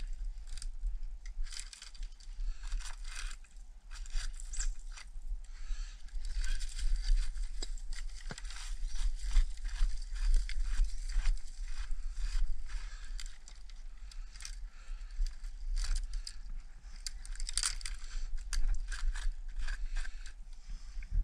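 Irregular crunching and rustling of dry leaf litter, twigs and brush as someone moves through scrub around a tree, with a gloved hand handling the trunks. A steady low rumble of wind or handling on the microphone runs underneath.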